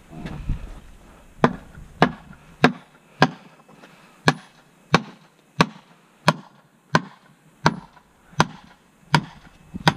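Hammer blows driving a field-plot sign's stake into dry ground: about thirteen sharp, evenly paced strikes, one every two-thirds of a second, starting about a second and a half in.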